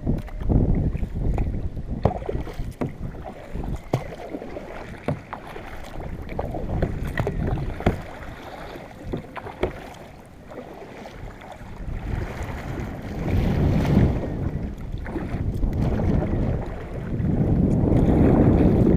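Water sloshing against a fishing kayak's hull, with wind buffeting the microphone and scattered light knocks. It swells louder about two thirds of the way through and again near the end.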